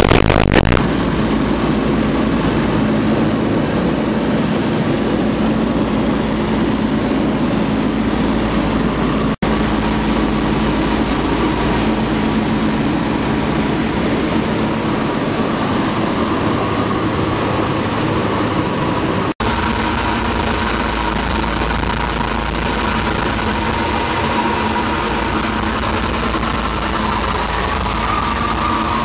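Steady drone of a B-17G Flying Fortress's four Wright R-1820 Cyclone radial engines in cruise flight, heard from inside the fuselage. The drone cuts out for an instant twice.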